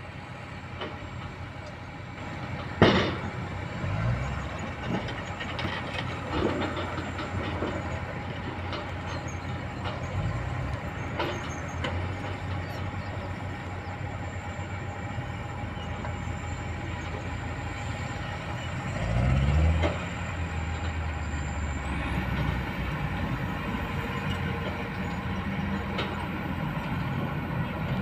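Kobelco hydraulic excavator's diesel engine running steadily at work, with sharp clanks of bucket on stone, the loudest about three seconds in. About two-thirds of the way through, an engine revs up briefly, rising in pitch.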